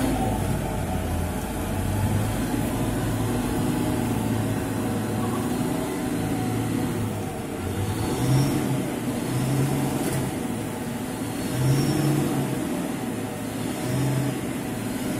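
Diesel engine of a loaded Mitsubishi dump truck labouring through deep mud ruts. Its revs rise and fall every few seconds.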